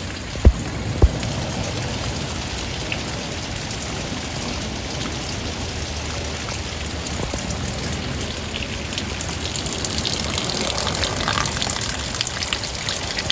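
Steady rain falling, a hiss with the patter of drops, which grows a little denser near the end. Two dull thumps come about half a second and a second in.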